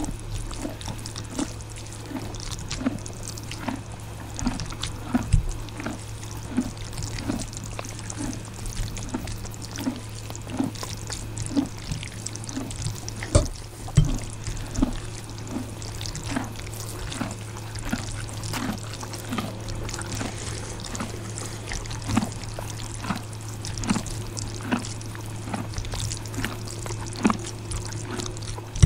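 Close-miked eating sounds of instant ramen noodles: wet chewing and slurping in a steady rhythm of a bit under two mouthfuls a second, over a steady low hum.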